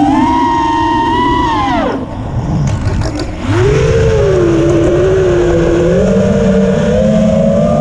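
Motors of a 5-inch FPV quadcopter (iFlight Xing 2306.5 2550KV brushless motors on 4S with Gemfan props) whining in flight. The pitch falls away sharply about two seconds in as the throttle is chopped, then climbs back up about a second and a half later and holds, rising slowly.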